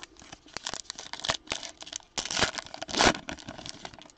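A foil trading-card pack being torn open and crinkled by hand: a run of crackling rips, loudest about two and three seconds in.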